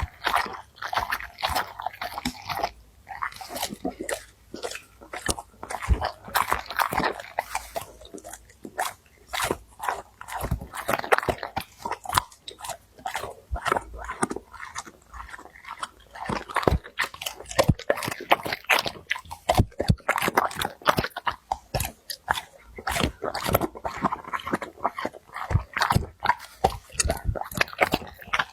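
A dog eating and slurping noodles close to the microphone: a dense, irregular run of wet smacks and chewing clicks.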